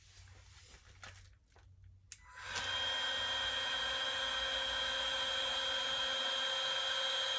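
Heat gun switched on about two and a half seconds in and running steadily with a whining fan, blowing hot air onto a heat detector to trip it for a fire alarm test. Before it starts there are only a few faint clicks and rustles.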